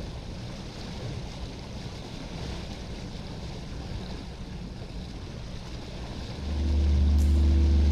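Steady wash of water and wind around a slow-moving sailboat. About six and a half seconds in, background music comes in with a deep, steady bass note that is louder than the water.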